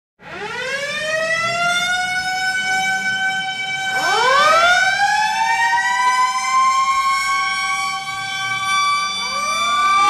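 HIFK's ice hockey goal horn, a siren-like wail, in a clean studio recording. One wail rises in pitch from the start and holds steady. A second rising wail joins about four seconds in and a third near the end, all overlapping.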